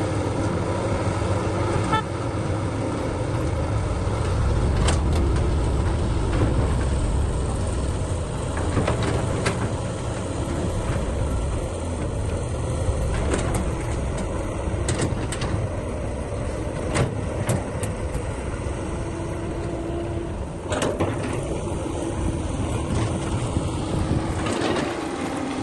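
Heavy diesel machinery running steadily at a constant pitch, with a dozen or so short, sharp knocks and clanks scattered through it.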